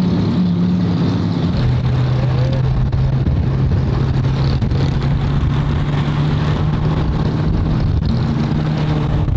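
Lamborghini engine running while driving, a steady drone whose pitch drops about one and a half seconds in and then slowly climbs again.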